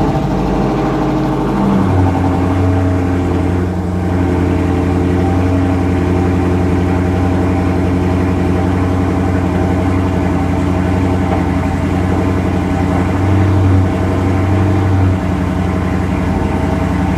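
2016 Dodge Charger SRT 392's 6.4-litre HEMI V8 idling just after being started on freshly changed oil. Its low note shifts about two seconds in and eases again near the end, typical of an engine settling into its warm-up idle.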